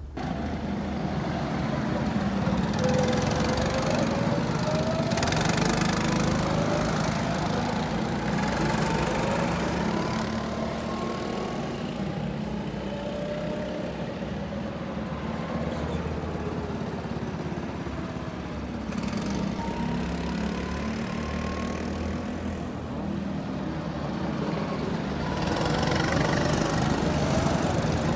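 Several go-kart engines running on a track, their pitch rising and falling as they accelerate, brake and pass. They get louder near the end as karts come close.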